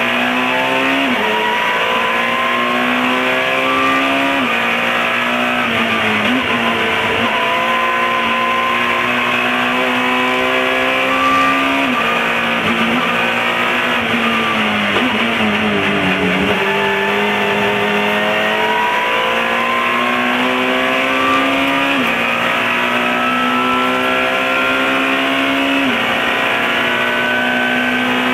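Alfa Romeo 156 S2000 race car's four-cylinder engine heard from inside the cockpit, its pitch climbing steadily through each gear and dropping sharply at several upshifts. A quick run of downshifts comes near the middle.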